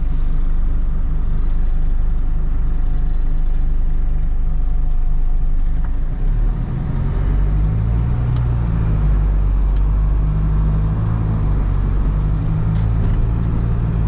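Hino cab-over box truck's diesel engine and road noise heard from inside the cab, a steady low hum that grows louder and heavier about six seconds in as the truck pulls harder. A few faint ticks come through near the end.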